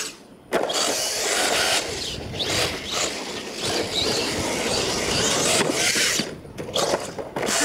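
Radio-controlled monster truck driving hard on dirt: motor and gears whining and rising and falling with the throttle, with tyres scrabbling. The sound drops out briefly near the start and again about six seconds in.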